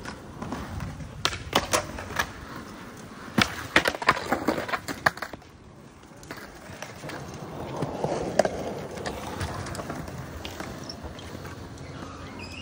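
Skateboards on concrete: wheels rolling, with two clusters of sharp wooden clacks from boards hitting the ground, about a second in and again around four seconds in.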